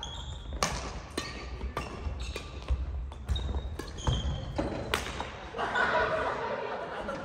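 Badminton rally on a wooden gym floor: a quick string of sharp racket hits on the shuttlecock, mixed with short shoe squeaks and footfalls, echoing in the large hall. A voice calls out near the end.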